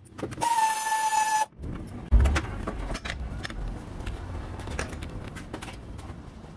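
Workshop noise while a hose clamp is taken off a power-steering return hose. About half a second in, a loud hiss with a steady whistle lasts about a second and cuts off suddenly. Then a low rumble follows, with scattered light clicks.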